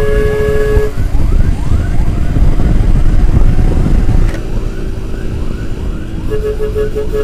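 Heavy wind and road rumble on a motorcycle rider's microphone, with a repeating rising chirp about three times a second over it. A steady tone cuts off about a second in, and quick beeping starts near the end.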